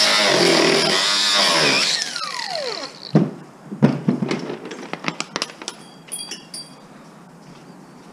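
A handheld power tool motor running, then winding down with a falling whine about two seconds in, followed by a string of sharp metallic clinks and knocks that fade out.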